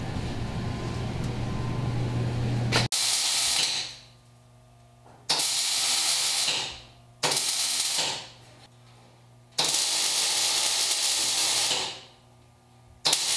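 Wire-feed (MIG) welder laying short stitch welds on the sheet-metal seams of a firewall. Five sizzling bursts of about one to two seconds each begin about three seconds in, each starting abruptly, and the last is cut off. A steady hum and hiss comes before the first burst.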